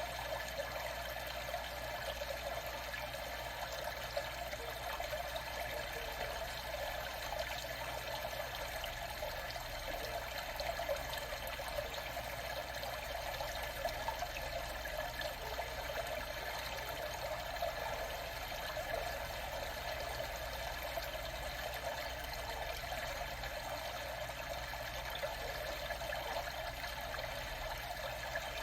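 Water trickling and splashing steadily, with small irregular peaks and no pauses.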